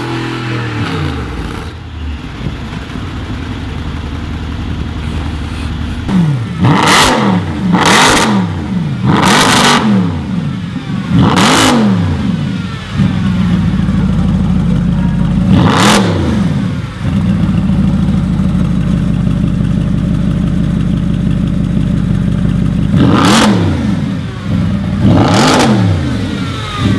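A high-performance car engine revved repeatedly from idle, each rev rising and falling in pitch, with a loud exhaust crack at the top of most revs. It settles to a steady idle for several seconds between the bursts.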